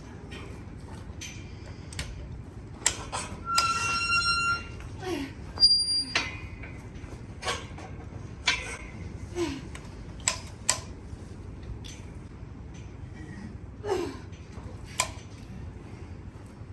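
Scattered sharp knocks and clanks, with a short high squeal about four seconds in and a few short low sounds between them.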